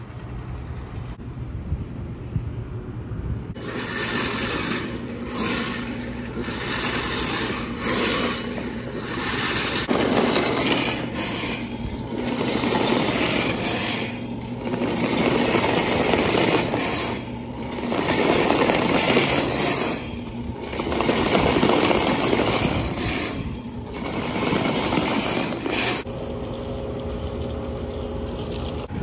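Drum drain-cleaning machine running, its spinning coiled steel cable rattling and scraping in a drain opening against the metal drain ring. The noise comes in surges about every two seconds, after a quieter first few seconds of steady hum.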